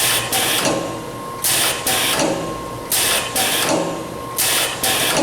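Chicago Rivet Model 176 pneumatic rivet machine cycling steadily, about once every one and a half seconds. Each stroke gives two short hisses of air, and there are four cycles in all.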